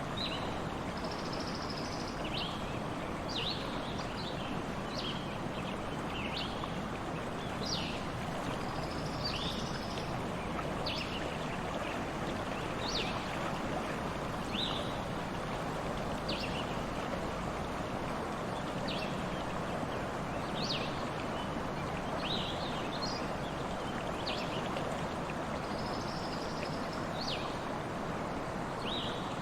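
A stream running steadily, with small birds giving short high chirps every second or two and a few brief buzzy notes.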